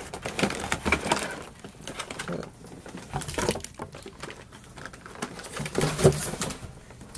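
Stiff clear plastic packaging crinkling and crackling as a blister tray is slid out of a cardboard box and set down, with a few brief squeaks of plastic rubbing, one louder about six seconds in.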